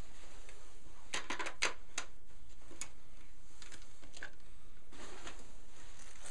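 A few light clicks and knocks from a Ruger 10/22 rifle and its plastic 25-round magazine being handled, most of them bunched about a second in, over steady room noise.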